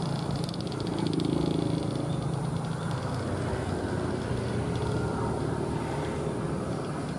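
Small engine of a homemade three-wheeled scooter running steadily as the scooter drives off, with a fast rattle in the first couple of seconds.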